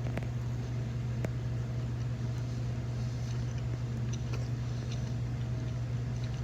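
Steady low hum throughout, with a few faint clicks and mouth sounds of someone chewing a bite of a chicken biscuit.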